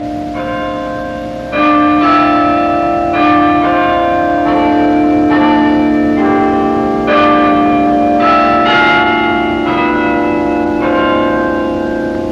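Tower bells struck one at a time at different pitches, roughly one strike a second, each ringing on under the next, so that they make a slow tune on a set of chime bells.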